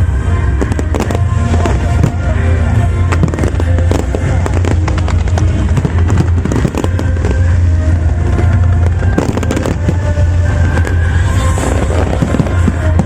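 Fireworks crackling and popping in rapid, dense succession, with music playing along.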